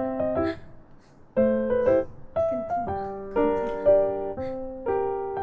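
Piano-led background music, with a short break about a second in before the tune picks up again.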